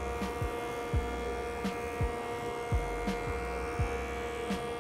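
Jointer running with a steady motor hum and whine while a red oak board is fed across it by hand, with soft low thumps recurring about once a second.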